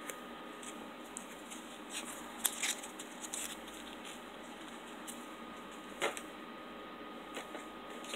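Light handling of plastic ration food packets and peanut butter pouches: faint crinkles and a few short taps, the sharpest about two and a half and six seconds in, over a steady low hiss.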